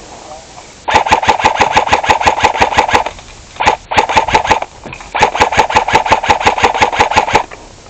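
S&T AK105 airsoft electric gun firing three full-auto bursts at about ten shots a second, with a steady gearbox whir under the shots: a long burst about a second in, a short one, then another long one.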